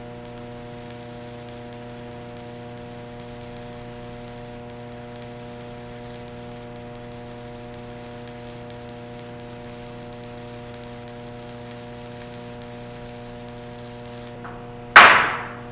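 Stick welding arc burning a Golden Bridge J422 rod at 100 amps on a small inverter welder: a steady sizzling hiss with an electrical hum. It stops near the end, followed by one sharp chipping-hammer strike on the slag.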